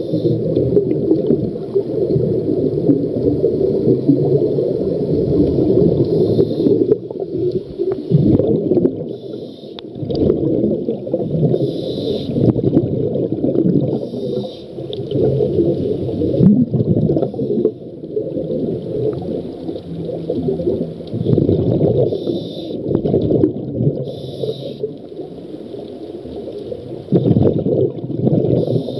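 Scuba diver breathing through a regulator, heard underwater: a bubbling, gurgling rumble with short hisses every few seconds.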